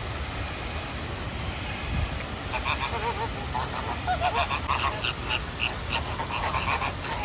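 Birds calling: from about two and a half seconds in, a quick run of many short calls with a wavering pitch, over a steady low background rumble.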